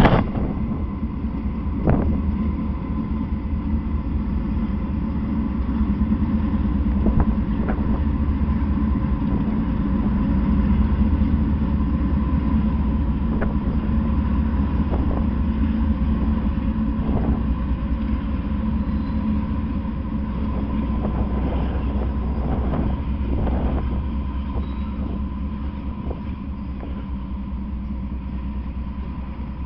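Norfolk Southern freight train passing close by: the diesel locomotives' engines run with a low, steady drone, then covered hopper cars roll past with scattered clacks of wheels over the rail joints. The sound swells after the first few seconds and eases off near the end.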